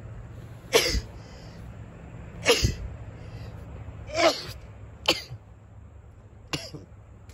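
A man sneezing five times in a row, every second or two, the last two sneezes shorter and weaker; he puts it down to allergies.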